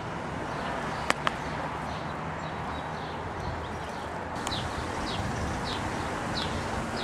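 A bird repeating a short, high, falling call about every half second, starting a little past halfway, over a steady background hiss. Two sharp clicks come about a second in.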